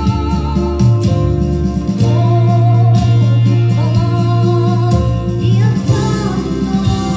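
A Christmas song sung over guitar accompaniment with a steady bass line.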